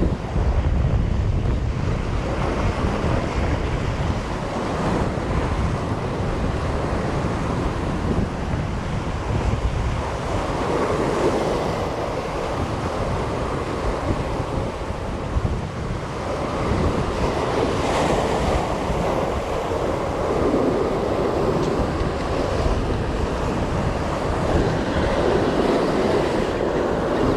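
Sea waves surging against shoreline rocks, swelling and easing every few seconds, with wind buffeting the microphone.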